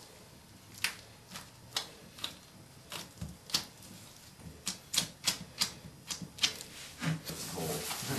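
Irregular light clicks and taps, about fifteen spread over several seconds, from hands working extra wax onto a toilet's offset closet flange.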